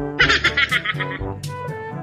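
Background music with held notes over a repeating low beat, with a short, high fluttering burst in its first second.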